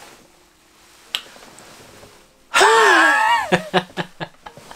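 A man laughing: a sudden loud, high-pitched squeal that rises and falls for about a second, then a quick run of short laughs, about six a second.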